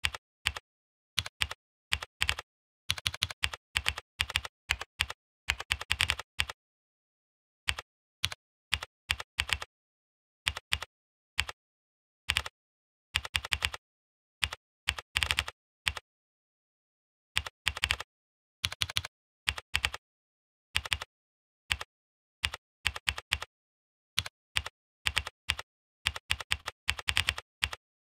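Computer keyboard typing in bursts of keystrokes separated by short pauses, the longest about six seconds in and again about sixteen seconds in.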